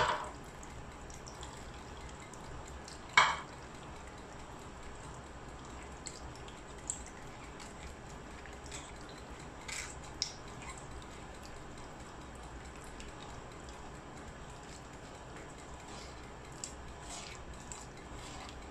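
Tamarind water dripping through a small metal strainer into a clay pot of curry, with a few light clinks and taps of the strainer against the pot. The sharpest clink comes about three seconds in.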